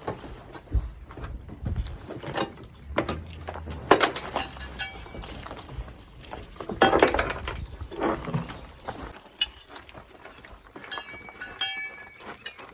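Metal jingling and clinking with scattered knocks, as of horse tack or spurs being handled, with a louder rustling burst about seven seconds in.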